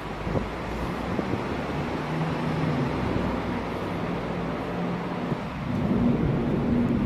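Wind buffeting a handheld phone's microphone, a steady rumbling hiss, with a faint low hum underneath.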